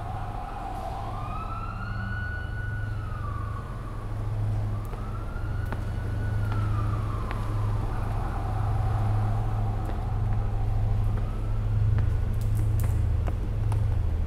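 A siren wailing in slow rising and falling sweeps, about three seconds each, over a steady low rumbling drone; the later sweeps are fainter.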